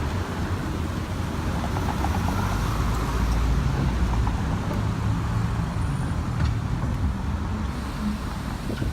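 Steady rumble of passing road traffic, swelling slightly a few seconds in.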